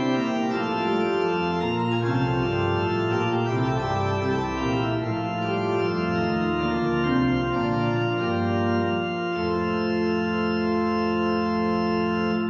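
Pipe organ playing slow, sustained chords that change every second or so, then settling on one long held chord about three-quarters of the way through.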